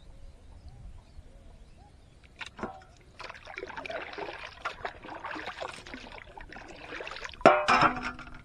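Water splashing and dripping as a monofilament gill net is hauled up from the river by hand and shaken at the surface, starting a couple of seconds in, with the loudest splash near the end.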